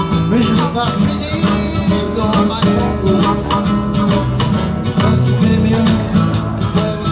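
Live acoustic blues band playing: several strummed acoustic guitars over drums, with a harmonica.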